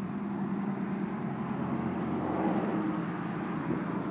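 A motor vehicle driving past, its engine and road noise a steady drone that swells slightly about halfway through.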